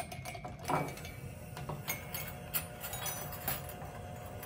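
Electric hand mixer running with a steady motor tone, its beaters in a ceramic mug. Scattered knocks and clinks sound through it.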